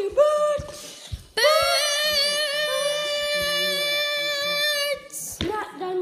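A child singing unaccompanied: a couple of short high notes, then one long held high note lasting about three and a half seconds, breaking off near the end into shorter vocal sounds.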